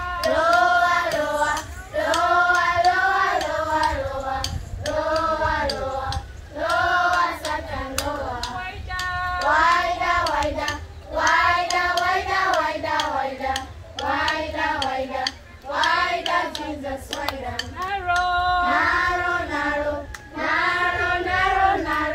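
A group of children and women singing a praise song together in short repeated phrases, with hand claps keeping the beat.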